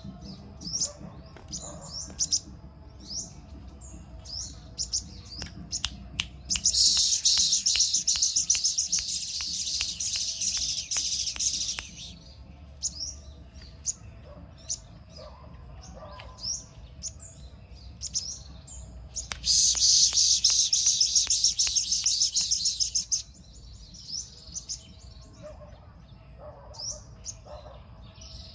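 Caged sunbird singing: a string of short, high chirps broken by two long, fast buzzing trills of four to five seconds each, the first about a quarter of the way in and the second about two-thirds through. The bird is five months old, has finished its moult and is coming into full song.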